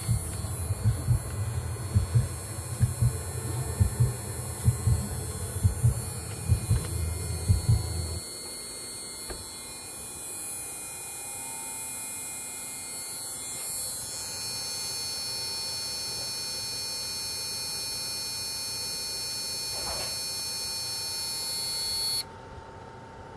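Electrical noise from a Gigabyte motherboard in a Haswell PC, which the owner puts down to the motherboard rather than a fan. A low, irregular pulsing buzz lasts about the first eight seconds, over several steady high-pitched whining tones that cut off suddenly near the end.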